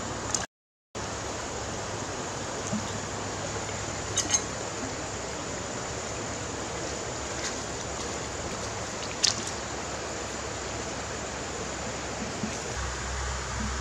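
Steady rushing of a shallow, rocky stream, with a few sharp clicks of stone, the loudest about nine seconds in. The sound cuts out completely for about half a second near the start.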